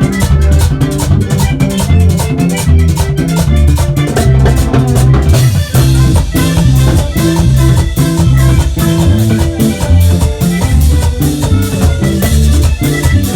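Vallenato music: a button accordion playing a melodic passage over a bass line and percussion with a steady beat.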